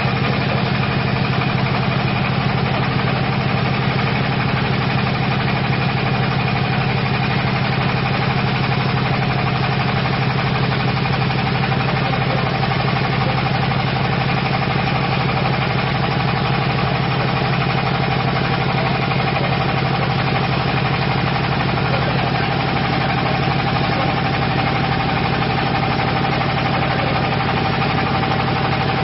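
58 HP diesel engine of a compost windrow turner running steadily.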